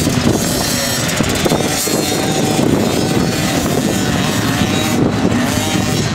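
Small children's motocross bikes' engines buzzing and revving, rising and falling in pitch as the riders work the throttle over the track.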